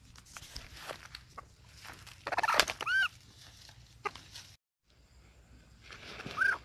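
A trapped wild chicken squawking while it is handled, over rustling of grass and feathers. One loud squawk comes about three seconds in and another near the end, with a brief break in the sound between them.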